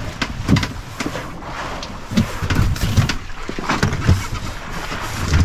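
Irregular knocks, thumps and light clatter of someone moving about and handling things on a wooden-and-metal fishing boat's deck beside the fish box.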